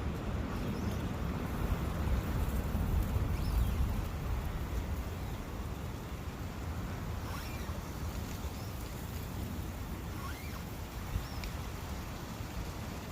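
Wind in a forest near a brook: a steady rushing noise with a low rumble that swells a little a few seconds in, with a few faint short high calls above it.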